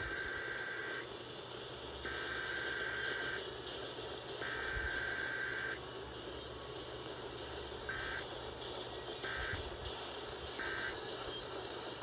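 Emergency Alert System SAME digital data bursts on a broadcast: three header bursts of about a second each, a second apart, then three short end-of-message bursts, over a steady hiss. There is no long attention tone between them, the pattern of an EAS Required Weekly Test.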